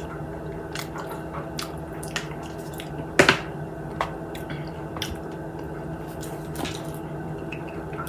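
Close-up wet chewing and mouth smacking while eating fried chicken, with scattered sharp clicks and one louder click about three seconds in, over a steady low hum.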